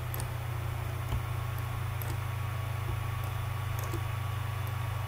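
Steady low electrical hum, with a few faint computer mouse clicks roughly a second apart.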